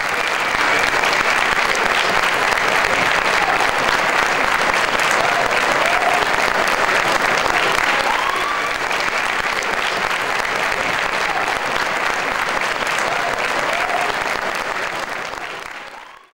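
Audience applauding steadily, with a few faint voices calling out in the middle; the clapping fades out near the end.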